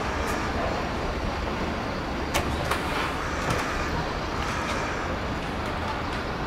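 Steady outdoor rumble and hiss at a high open lookout: wind buffeting the microphone over distant town traffic, with a few faint clicks about two to three and a half seconds in.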